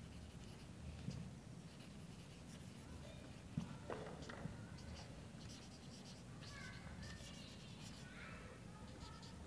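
Faint scratching and squeaking of a marker pen writing on a whiteboard in short strokes, with a couple of light taps.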